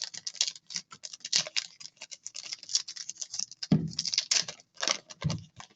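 Trading card packs being handled: plastic wrappers crinkling and crackling in a dense run of quick clicks, with a few soft thuds near the end.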